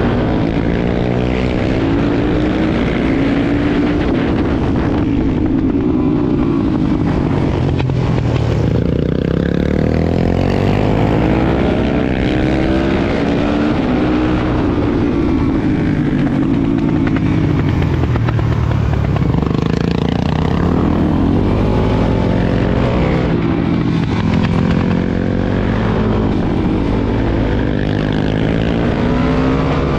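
Suzuki DR-Z400SM supermoto's single-cylinder four-stroke engine heard on board at track pace, its pitch climbing under throttle and dropping back over and over through the corners and gear changes.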